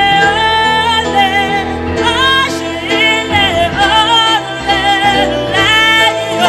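A gospel worship song sung by one lead voice, with long held notes and sliding runs, over steady band accompaniment.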